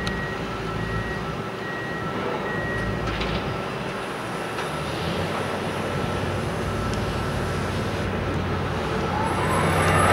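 Heavy construction machinery running, a steady mechanical din that grows louder near the end.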